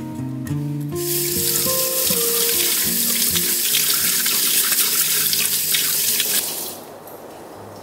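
Kitchen tap running through its spray head onto small cleaning brushes rubbed together by hand in a stainless steel sink; the water comes on about a second in and stops near the end.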